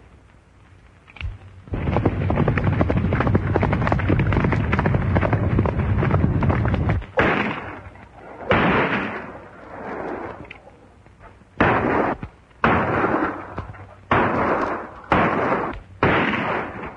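Gunfight on an old film soundtrack: about five seconds of heavy, rapid overlapping gunfire, then about seven separate gunshots at uneven intervals, each with a trailing echo.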